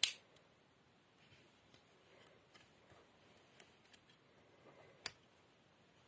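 Victorinox German army pocket knife: a tool snaps shut against its backspring with a loud, sharp click, then faint small clicks and scrapes of handling, and a second sharp click about five seconds in.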